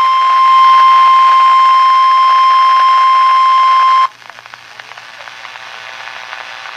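Weather radio sounding the NOAA Weather Radio 1050 Hz warning alarm tone, one loud steady tone announcing a winter storm warning. It cuts off suddenly about four seconds in, leaving faint radio hiss.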